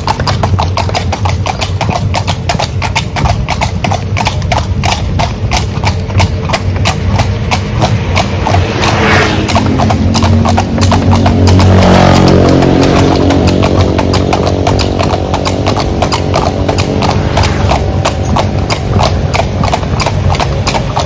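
Hooves of two carriage horses clip-clopping steadily on asphalt, a rapid even beat of several strikes a second. About halfway through, a car passes close by, its engine and tyre noise swelling and then fading under the hoofbeats.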